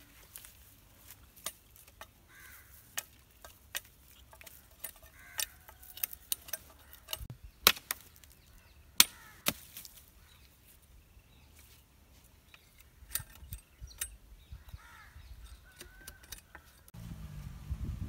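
A sickle's blade chopping and trimming a forked wooden branch: sharp, irregular chops and cracks, the loudest a little under halfway through, with faint bird calls in between. Near the end the chopping stops and a low rumbling noise starts.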